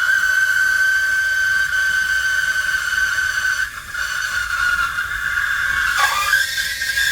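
Steam wand of a DeLonghi manual espresso machine frothing milk in a jug: a loud, steady hiss with a high whistling screech. About six seconds in the whistle wavers and dips in pitch.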